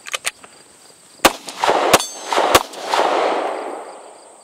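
Beretta M92 9mm pistol fired three times in quick succession, the shots about two-thirds of a second apart starting a little over a second in. Each shot leaves a ringing echo that fades out over about a second and a half. The pistol is still firing and cycling after being run through sand and dust.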